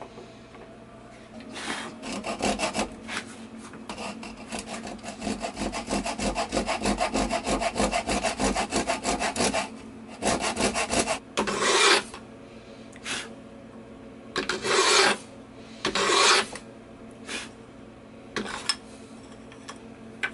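Japanese handsaw cutting a thin strip of dark hardwood by hand: a fast, even run of short strokes, then a few long, separate strokes with pauses between them. A few light taps near the end.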